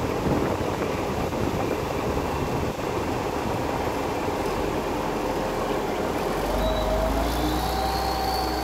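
Heavy grain truck's diesel engine running, a steady rumble that grows deeper and stronger about halfway through. Faint whining tones rise and fall near the end.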